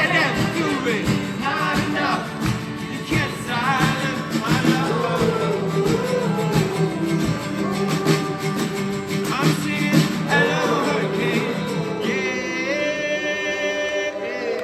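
Live rock song: singing over guitar, ending in a long held sung note near the end.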